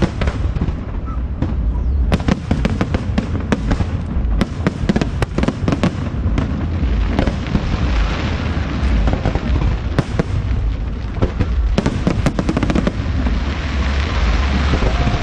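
Aerial fireworks display: a rapid run of sharp bangs and crackles over a steady low rumble, turning into a denser, more even crackle near the end.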